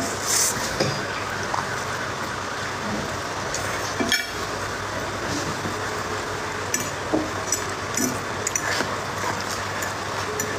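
Metal fork clinking and scraping on a ceramic plate while eating instant noodles: scattered short clicks, the sharpest about four seconds in, over steady background noise.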